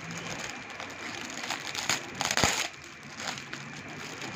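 Clear plastic packaging crinkling and rustling in irregular spurts as it is handled and pulled open, with one sharp snap about halfway through.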